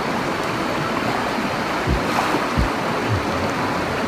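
Stream water flowing, a steady rushing noise, with a couple of dull low thumps about halfway through.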